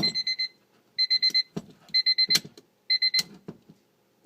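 1997 Honda Civic's dashboard warning chime, beeping in four short trains of quick high beeps, about one train a second. A few key clicks and jingles come between the trains.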